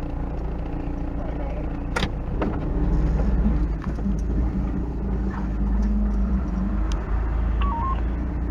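1986 Toyota's engine running steadily at low speed while the truck reverses over rough off-road ground, with a sharp knock about two seconds in. Near the end comes a short electronic beep that rises and falls in pitch.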